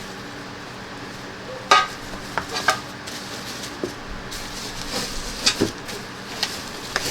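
Metal turbo-kit intercooler piping clinking and knocking as it is handled, a few sharp clanks with brief ringing, the loudest about two seconds in.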